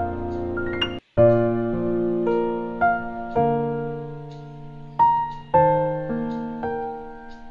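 Background piano music: slow, gentle notes, each struck and left to fade, with a brief break about a second in.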